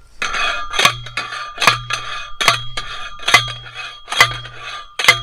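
A hand post driver slamming down on a metal earth stake, driving it into the ground for an electric fence's earthing. There are six metallic clangs a little under a second apart, each leaving a short ringing tone.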